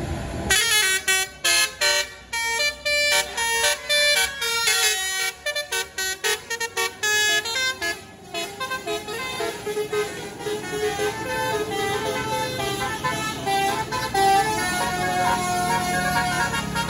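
A tour bus's musical 'telolet' horn playing a tune. The first half is a quick run of short, choppy notes; after about eight seconds the notes run longer and are held.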